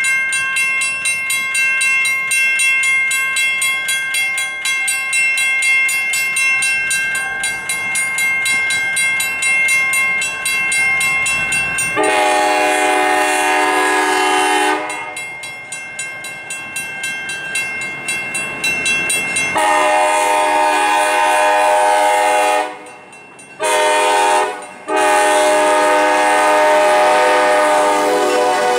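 Grade-crossing warning bells ringing rapidly, then an EMD GP10 locomotive's multi-chime air horn sounding the crossing signal, long, long, short, long, starting about twelve seconds in. The bells are heard again between the first two horn blasts.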